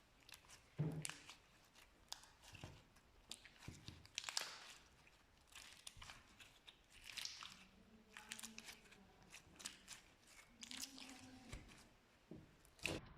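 Slime being worked, giving quiet irregular sticky crackles and pops, with a few louder snaps about a second in, around four seconds and near the end.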